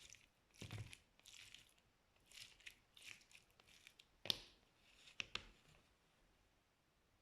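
Slime being squeezed and pressed by hand: soft crackling, crinkly squishes with a few sharp pops, the loudest about four seconds in.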